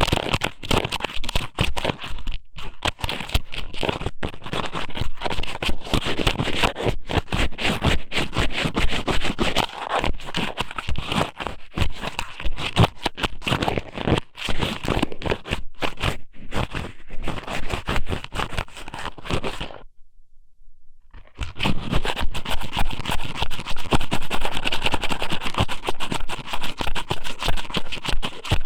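Strips of squid sashimi (ika sōmen) pushed and rubbed against a microphone's ear, making a dense, continuous run of scraping crackles. The crackling stops for about a second around twenty seconds in, then starts again.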